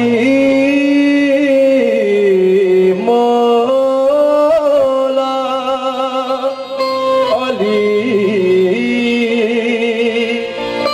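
Live qawwali: a male lead voice sings long, ornamented held notes with wavering vibrato over sustained harmonium chords.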